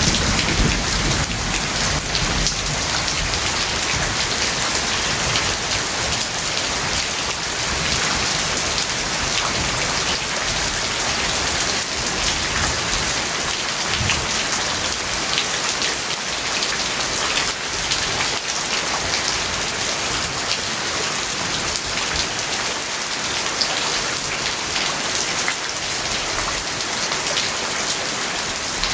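Steady rain falling, with a low rumble of distant thunder dying away in the first second or two.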